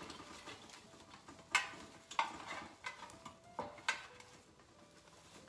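Handling noise as a ribbon bow is pressed and fastened onto the top of a red lantern: ribbon rustling and irregular light clicks and clinks, a few with a brief metallic ring.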